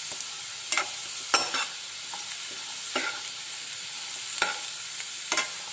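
Potato cubes sizzling in hot oil in a nonstick pan, frying until golden, with a steady hiss. A steel spoon scrapes and knocks against the pan about six times as they are stirred, the sharpest stroke about a second and a half in.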